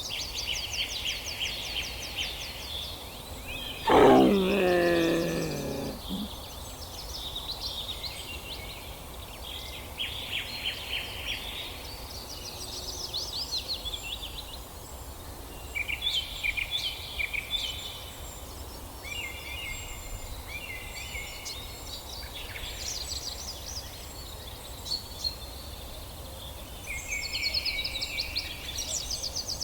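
Birds chirping and trilling on and off throughout, with one loud animal call about four seconds in, about two seconds long and falling steeply in pitch.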